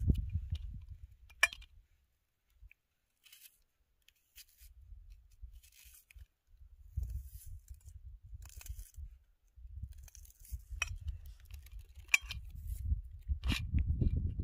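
Onion being sliced in the hand with a small knife: a few sharp, crisp snips as the blade cuts through the layers, over an irregular low rumble.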